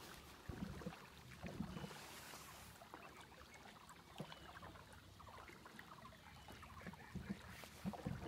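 Faint water lapping and splashing against a small boat's hull as it moves across calm water, with a few soft irregular splashes.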